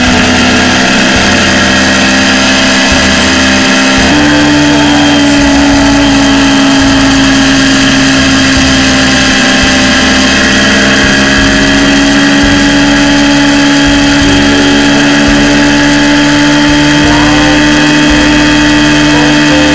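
Single-cylinder KTM Duke 200 engine running under way at steady road speed, with wind and road noise. About four seconds in, the engine note steps up suddenly to a higher pitch, then holds steady.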